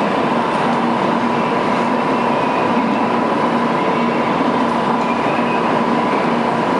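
Shinkansen train at the platform: a steady, loud rushing noise with a steady high hum running through it.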